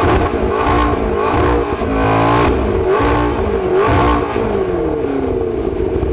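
McLaren MP4-12C's twin-turbo V8 engine revved repeatedly while standing, its pitch climbing and falling back several times.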